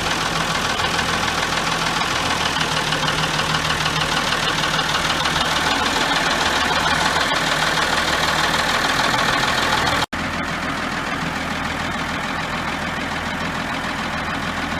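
John Deere 3255 tractor's diesel engine running steadily, with a momentary break in the sound about ten seconds in.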